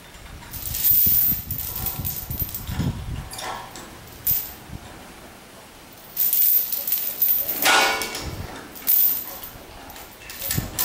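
Steel rigging chain rattling and clinking as it is gathered up and dragged over a concrete floor, in two spells, about a second in and again past the middle, while the chain is shortened for the lift.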